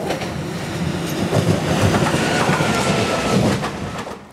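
MÁV class 480 Bombardier TRAXX electric locomotive passing close by, its wheels rumbling and clacking over the track. A steady high whine sounds for about a second in the middle, and the sound drops away sharply just after four seconds.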